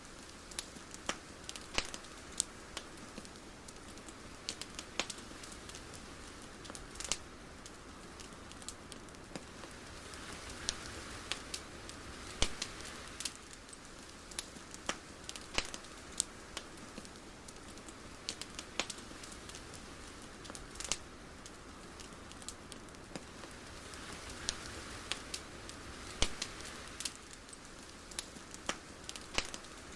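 Ambient crackling: a steady soft hiss with irregular sharp crackles and pops, a few a second.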